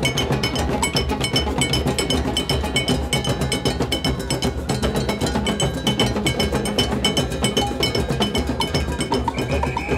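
A large beach drum circle playing: many hand drums beating a fast, steady rhythm together, with a high metallic bell struck in time over them.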